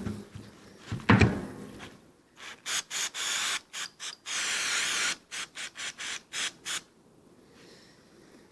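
Aerosol cleaner hissing from a spray can in a run of short squirts and a few longer blasts, cleaning carbon off a throttle body's butterfly. A single clunk comes about a second in.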